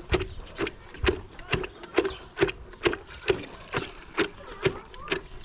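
Steady rhythmic knocking, about two sharp strikes a second, each with a short ringing note.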